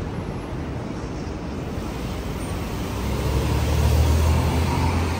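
Downtown street traffic: a steady hum of passing vehicles, with a heavy vehicle's low engine rumble growing louder from about three seconds in, then easing off near the end.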